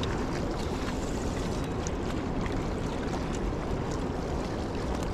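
Steady wind noise on the microphone with river water lapping at the shore.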